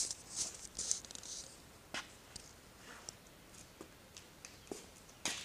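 Camera handling noise: a sharp knock at the start, then rustling and scattered small clicks as the camera is moved and set in a new place.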